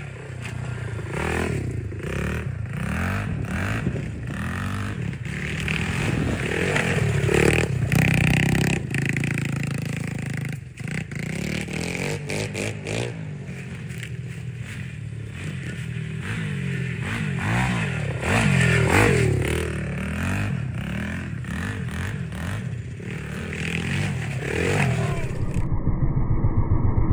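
Small dirt bike's engine revving up and falling back again and again as it is ridden at low speed, with sharp knocks and clatter among the revs. Near the end it settles into a steadier run at low revs.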